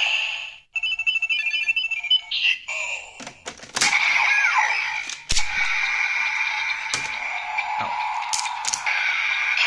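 Electronic sound effects from a Kamen Rider Zi-O Ziku-Driver toy belt with the Ghost Ridewatch fitted, played through its small speaker. A quick run of beeping tones comes first, then from about four seconds in a continuous electronic standby tune, broken by a few sharp plastic clicks.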